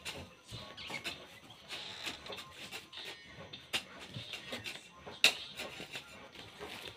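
Steel shovel scraping and scooping into a pile of sand and cement mix on hard ground, a series of gritty scrapes and knocks with two sharper ones near the middle and about five seconds in.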